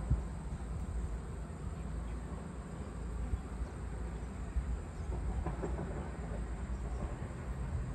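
Outdoor ambience: a steady low rumble with faint scattered sounds over it.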